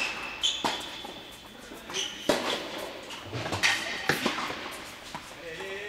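Tennis rally on an indoor hard court: several sharp racket strikes and ball bounces echoing in the hall, with short high sneaker squeaks between them.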